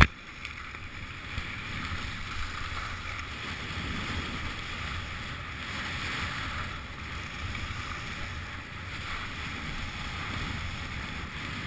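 Skis sliding and carving over packed, groomed snow: a steady scraping hiss that swells and eases every couple of seconds with the turns, with wind rushing over the microphone. A short sharp knock comes right at the start.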